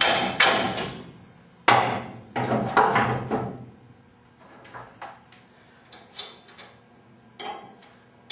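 Hammer blows on a garage door torsion spring's winding cone, knocking the spring a quarter inch along the shaft: four sharp strikes in the first three seconds, each ringing briefly. A few lighter clicks and knocks follow.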